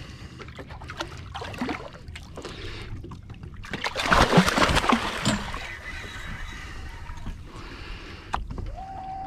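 Water sloshing against a small boat's hull, with a louder splash lasting about a second and a half around four seconds in. A short steady tone starts near the end.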